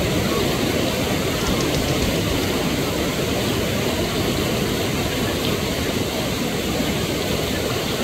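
Whitewater rapids rushing: a steady, even noise of churning river water.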